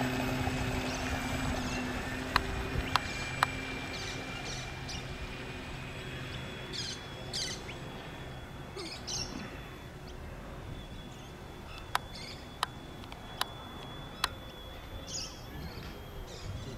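A radio-controlled model cabin cruiser's motor runs with a steady hum and whine that fades over the first few seconds as the boat pulls away across the water. Birds chirp through the rest, and there are several sharp clicks, three close together a few seconds in and four more later on.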